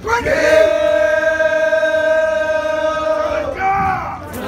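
Men singing together in unison, holding one long note for about three seconds, then a short second note near the end.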